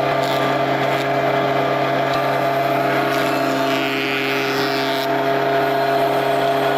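Wood planer running steadily with a constant motor hum, and a harsher hiss for about two seconds in the middle as it cuts wood.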